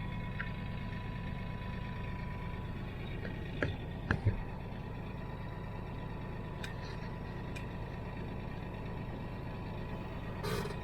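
Diesel engine of harvest machinery running steadily with a low hum and a thin steady whine, with a few short knocks about four seconds in.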